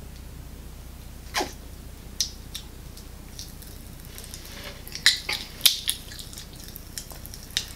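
Pop Rocks candy crackling and popping in a person's mouth: scattered sharp little pops, growing thicker in the second half.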